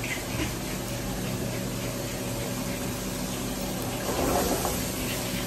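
Steady commercial kitchen noise: a gas range's burners running under pans of sauce simmering, over a low steady hum, a little louder about four seconds in.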